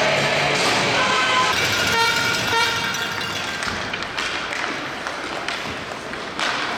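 A horn sounding in an ice hockey arena: a steady, multi-toned blast over a background of arena noise.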